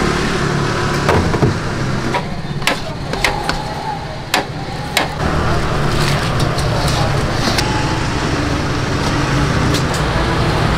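Street ambience: a steady traffic hum with a murmur of voices and scattered sharp clicks and clatters.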